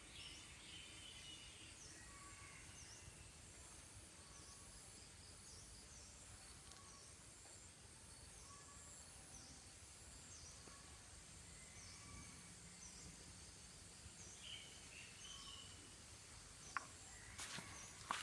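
Faint outdoor ambience of insects and birds calling, with short high chirps repeating about once a second. A few sharp clicks near the end.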